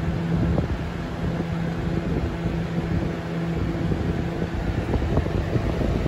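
A 1997–98 Lasko Ultra Force Model 3700 box fan, fitted with a replacement blade, running steadily: a rush of moving air over a low, even motor hum.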